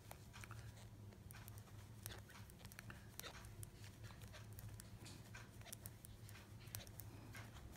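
Faint, irregular clicking of knitting needles as stitches are worked one after another, over a low steady hum.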